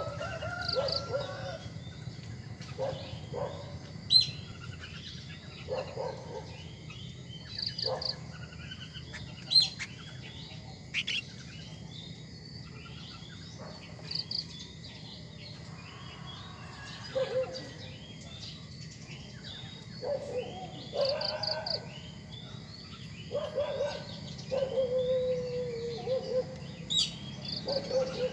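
Birds chirping: a string of short high chirps, about one or two a second, with lower, fuller calls now and then.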